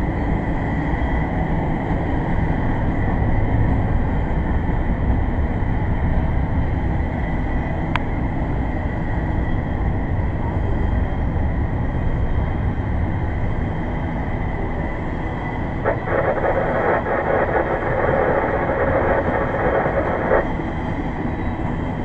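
Double-stack intermodal freight cars rolling past on the rails: a steady rumble of steel wheels on track. About three-quarters through, a louder, rattling stretch of higher-pitched noise lasts about four seconds and then drops back.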